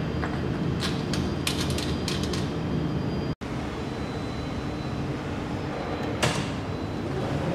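Small metal clicks of a screw-on circular cable connector being seated and tightened on its socket, then one sharp snap of a four-pole circuit breaker switched on about six seconds in, over a steady low hum.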